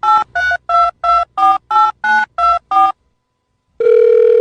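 Telephone keypad touch-tones: about ten short two-tone beeps in quick succession, about three a second, like a number being dialled. A steady tone starts near the end.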